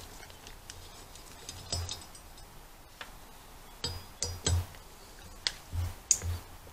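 Light metallic clicks and clinks of a steel pick tool being worked against a steel wheel hub and its retaining ring, with a few soft knocks of the hub being handled on a wooden bench. The taps come irregularly, a handful close together in the second half.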